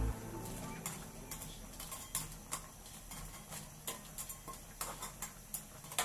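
Metal spatula knocking and scraping against an aluminium wok while crab pieces are stirred in broth, irregular clicks about two or three a second.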